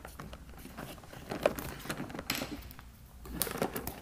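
Clear plastic wrap on new art supplies being handled and peeled off, crinkling with irregular crackles and clicks and a louder rustle a little past two seconds in.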